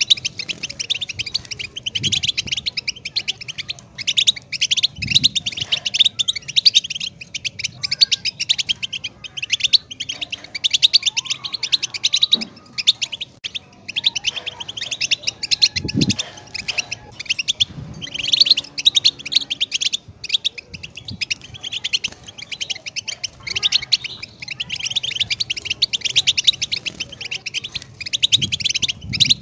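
European goldfinch singing a long, fast twittering song of rapid high notes, broken by brief pauses every few seconds. A few soft low thumps sound underneath now and then.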